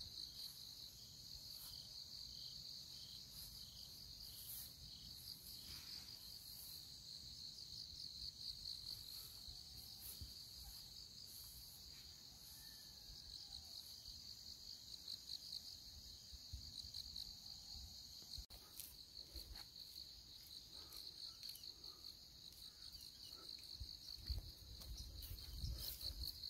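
Crickets chirping in a steady, faint chorus, a high pulsing trill that does not stop. A few low thumps come in near the end.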